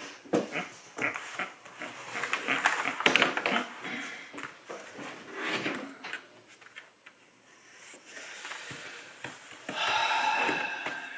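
Irregular clatter and rustling of cardboard jigsaw puzzle pieces and a large puzzle board being shifted across a wooden table, then a brief pitched vocal sound about ten seconds in.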